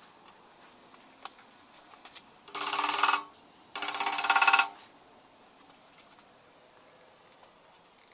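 A mallet tapping a plastic end cap into the end of a square steel tube, in two short runs of rapid taps about a second apart with a ringing tone under them, after a few faint clicks as the cap is set in place.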